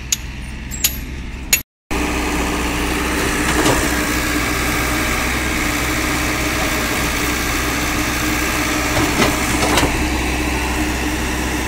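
Hyundai excavator's diesel engine running steadily while its bucket digs a trench, with a few short knocks. The sound is quieter with a few clicks for the first second and a half, then drops out briefly.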